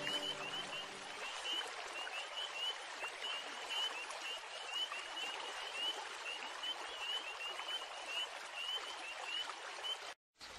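Outdoor ice-rink ambience from many skaters: a steady hiss, typical of skate blades on ice, with a running string of short high chirps. It cuts off suddenly near the end.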